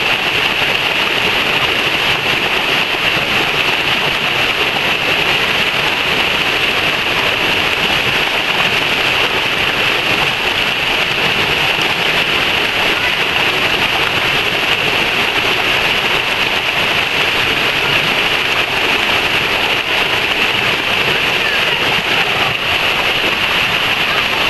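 Creek water rushing down a natural rock water-slide chute, a shallow cascade close by, in a steady, unbroken rush.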